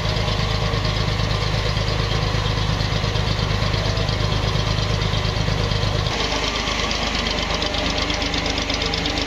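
Oilseed expeller mill machinery running: the seed feed conveyor and expeller press give a loud, steady mechanical din with a fast knocking rattle. About six seconds in, the deep hum drops away and a lighter, higher machine rattle carries on.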